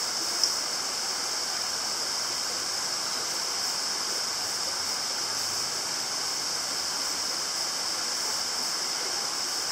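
Steady rush of a shallow forest stream running over rocks, with one short sharp click about half a second in.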